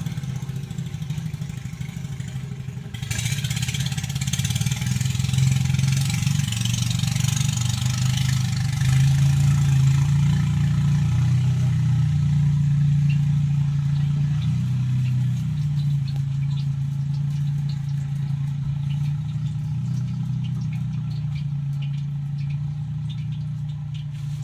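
An engine running steadily, a low drone whose pitch rises and falls slightly. A hissing noise comes in about three seconds in and fades away several seconds later.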